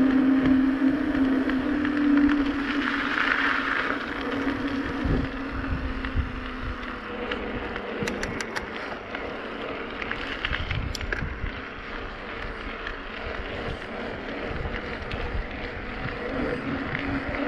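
Riding a bicycle on pavement: wind buffeting the microphone over rolling tyre noise, with a steady hum that fades after six or seven seconds and comes back near the end. A few light ticks about eight and eleven seconds in.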